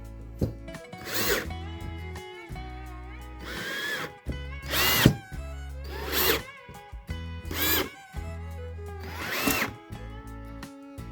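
A power tool run in about six short bursts, each a second or less, its whine rising and falling in pitch with each burst, over background guitar music.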